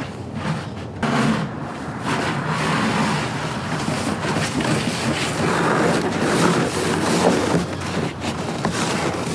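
Snowblower engine running steadily while it clears snow.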